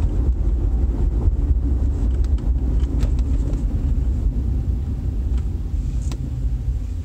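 Low rumble of road and engine noise inside the cab of a 2005 Chevrolet Avalanche pickup, getting gradually quieter near the end as the truck slows down.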